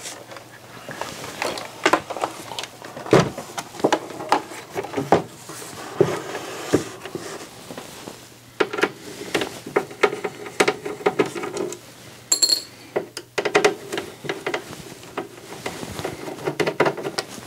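Irregular knocks and clatter of a CD player's sheet-metal chassis being handled and turned over on a table. Later comes the scraping and clicking of a hand screwdriver working at the case screws.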